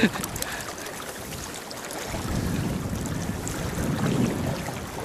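Steady rush of running river water with wind on the microphone, swelling for a couple of seconds from about two seconds in.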